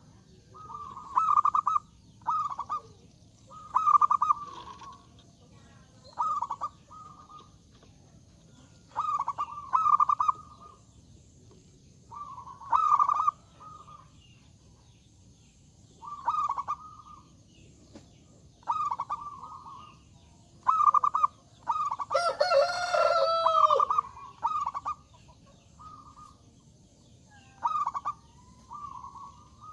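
Zebra dove (perkutut) cooing in short repeated phrases, one every second or two. About 22 seconds in, a louder, longer call from another bird cuts across the cooing for about two seconds.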